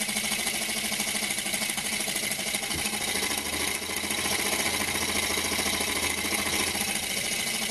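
Small single-cylinder rotary-valve model steam engine (13.5 mm bore and stroke) running fast on compressed air, a steady, pretty noisy clatter that sounds more like a petrol engine than a steam engine. A lower hum comes in about three seconds in and fades near the end. The builder puts the noise down to everything vibrating on the light steel mounting plate.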